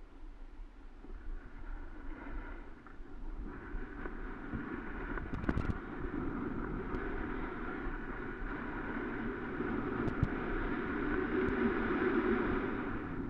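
Rushing wind on a helmet-mounted camera and the scrape of sliding down packed snow, growing louder as speed builds, with a couple of faint knocks about five and ten seconds in.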